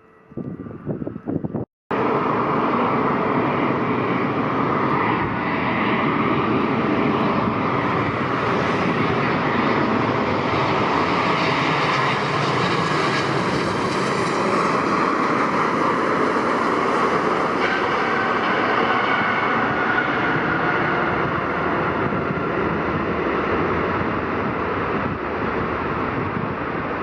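Jet airliner's engines running loud and steady, cutting in suddenly about two seconds in, with a faint rising high whine around the middle.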